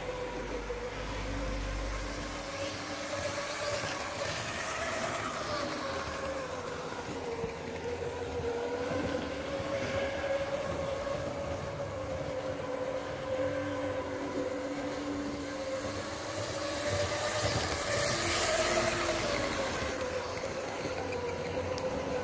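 Tri-ang Blue Pullman model train running round its track: a steady whine from the electric motor that slowly wavers in pitch, growing louder about three-quarters of the way through as the train comes near.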